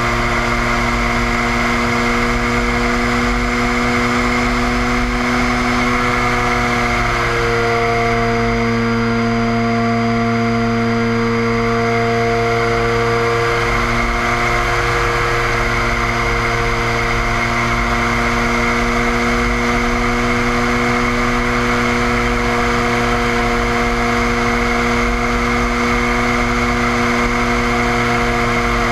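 The propeller engine of a DHC-2 Beaver running steadily in flight, with wind rushing over the camera. Its pitch wavers a little partway through as the plane banks, then settles.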